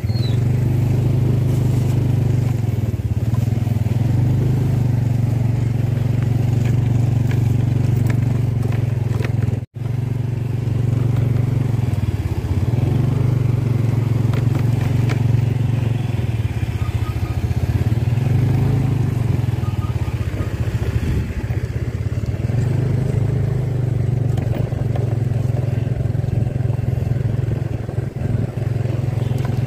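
Motorcycle engine running steadily while riding, a constant low hum, cutting out briefly about ten seconds in.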